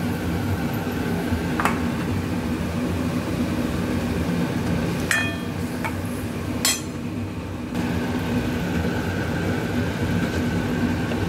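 A steel spoon stirring potato curry in a metal pan, clinking against the pan a few times, once with a short ring, over a steady low hum.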